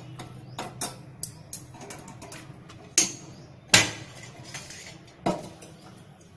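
Small steel pan and metal pan-gripping tongs clinking and clanking as the pan of oil is set on a gas stove burner. There are several sharp metal knocks; the loudest two come about three and four seconds in.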